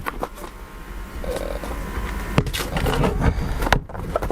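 A cardboard box and its packaging being handled and rummaged through: rustling with scattered clicks and knocks.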